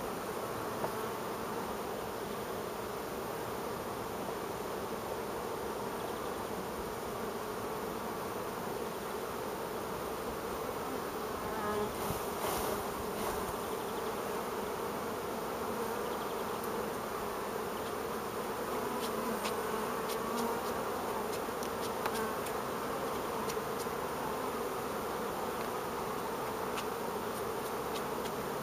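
Carniolan honeybees buzzing steadily around an open hive, with a few light clicks partway through.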